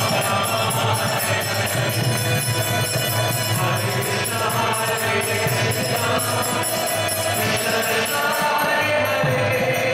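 Devotional kirtan: a harmonium playing under singing voices, with small hand cymbals ringing in a steady beat.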